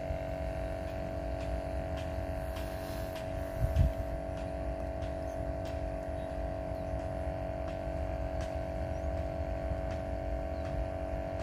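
A motor running steadily, a droning hum over a low rumble, with a short low thump about four seconds in.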